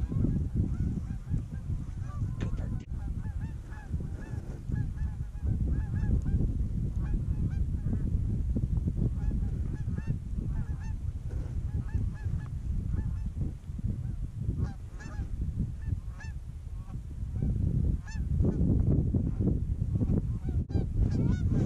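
Canada geese honking and clucking in a steady run of short calls, a few a second, over a low rumble of wind on the microphone.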